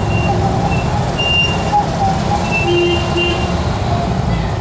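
Classic Fiat 500s' air-cooled two-cylinder engines running as the cars drive past one after another, a steady low rumble.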